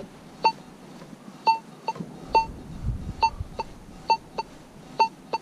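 AKA Signum MFD metal detector giving about ten short, high target beeps, some in quick pairs, as the coil sweeps back and forth over a buried target with the gain set at 7.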